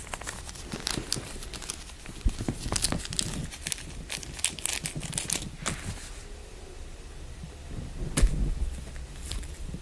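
A clothes label and spare button crinkling and clicking as a cat plays with them, in irregular runs of small crackles, with a louder knock about eight seconds in.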